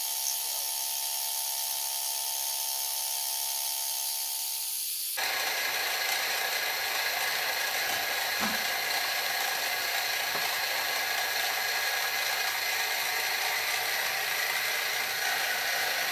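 Grizzly mini mill running with a flycutter held in a 3D-printed PLA MT3 collet, a steady machine hum. About five seconds in, the flycutter starts cutting into aluminum and a louder, noisy cutting sound takes over.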